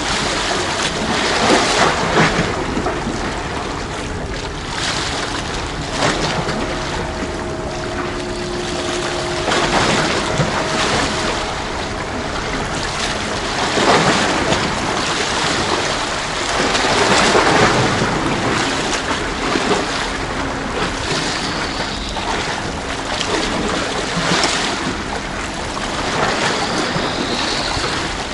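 Sea waves washing and sloshing against a tetrapod breakwater, swelling up several times, with wind buffeting the microphone. A faint steady hum sits under the wash for a few seconds in the middle.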